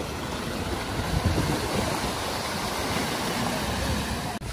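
Water rushing and splashing as a BMW saloon car drives through a flooded ford, its bow wave and tyre spray making a steady wash of noise. The sound breaks off for an instant near the end.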